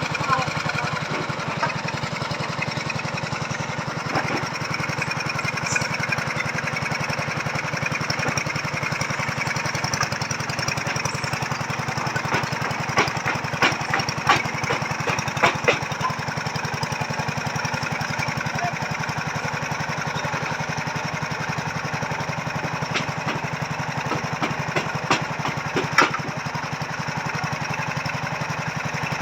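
Small engine of a machine earth drill running steadily as it bores a strauss pile foundation hole. A cluster of sharp knocks comes about halfway through, and a few more near the end.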